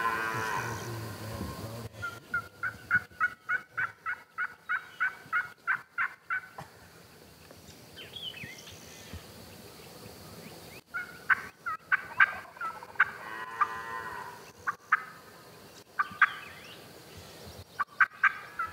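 Turkey yelping: a long, even run of about fifteen yelps lasting roughly four seconds, then scattered yelps and clucks later on. A drawn-out, lower call is heard about two-thirds of the way through.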